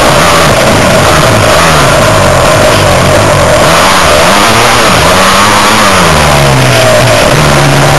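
Dirt bike engine, loud and close on the bike, revving up and down again and again as the throttle is worked over the track, with a longer climb in revs in the second half and a steadier high note near the end.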